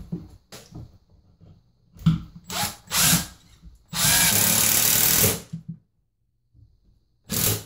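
Milwaukee cordless drill/driver driving a cabinet screw through the top of a wall cabinet into a wall stud. It comes in a few short bursts, then runs steadily for about a second and a half, and starts again near the end.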